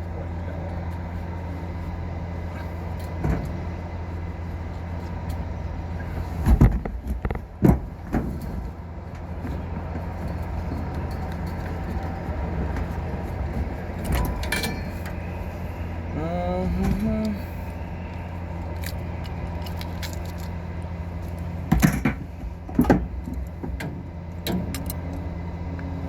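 A steady low machine hum, with scattered metallic clicks and knocks, in clusters about six to eight seconds in, around fourteen seconds, and again about twenty-two seconds in.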